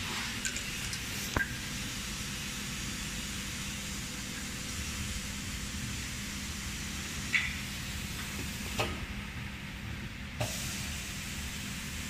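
Pneumatic vacuum suction on a vial filling and crimping machine's inner-stopper station: a steady hiss of air over a low machine hum, with a few sharp valve clicks. About nine seconds in the hiss cuts off with a click and returns with another click a second and a half later, as the vacuum is switched off and on.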